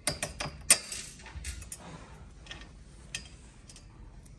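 Small metal clicks and clinks as M6 hex bolts, washers and nylock nuts are handled and fitted through a metal mounting bracket. There is a quick run of sharp clicks in the first second, the loudest just under a second in, then a few scattered ones.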